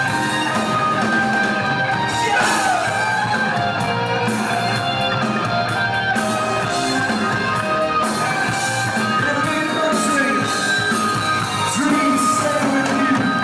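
Rock band playing live: electric guitars and drums with a singer, heard from within the crowd.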